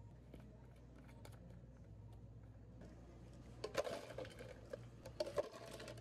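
Ice cubes rattling and clinking into clear plastic cups from a metal ice scoop, in quick bursts through the second half, over a low steady hum.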